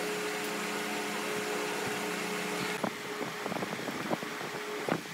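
Steady motor hum with a few light knocks; its lower tones stop about three seconds in while a higher tone carries on.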